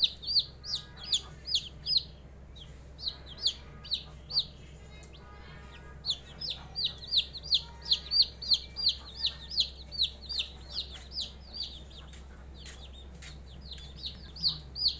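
Domestic chicks peeping: runs of loud, high-pitched calls, each a short falling note, about three a second, with brief pauses between the runs. A steady low hum lies underneath.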